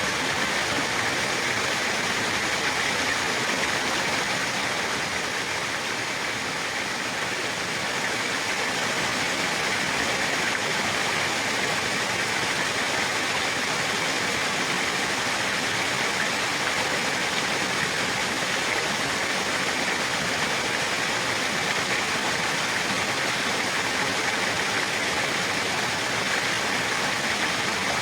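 Steady rushing of flowing water, as of a stream or small waterfall.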